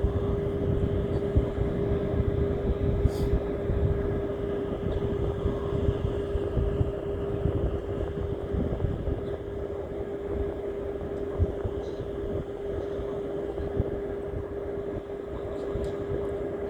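Steady mechanical drone with one constant hum, over a rough low rumble of wind on the microphone.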